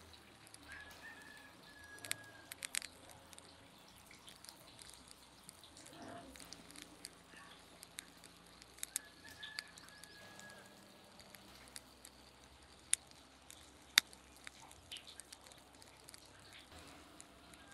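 Soft wet patter of soy-type sauce and then oil being poured over raw seasoned turkey pieces in a steel tray, with a few sharp clicks, the loudest near the end. A bird gives a short high call twice in the background.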